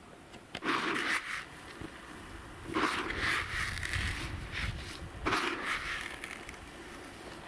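Dry fishing groundbait scooped by hand in a plastic bucket and trickling back through the fingers: grainy rustling in three bursts, the middle one the longest.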